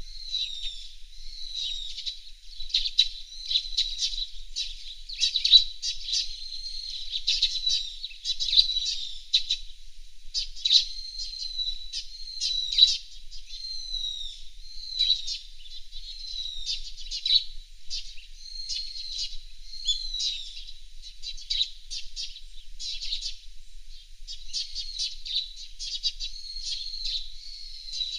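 Fairywrens chirping and trilling: a continuous run of high, quick notes and short slurred calls.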